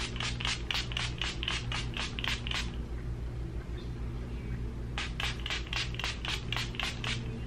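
Pump-mist bottle of Slay All Day Peach face spray misted onto the face in rapid short sprays, about five a second: a run of a dozen or so, a pause of about two seconds, then another run of about ten. A steady low hum underneath.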